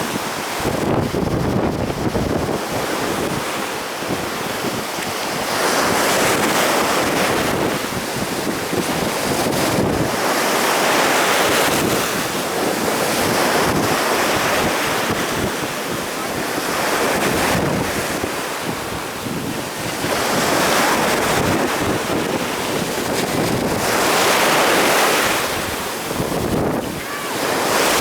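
Storm surf on the Sea of Azov, waves breaking and rushing in repeated surges every four or five seconds, with wind buffeting the microphone.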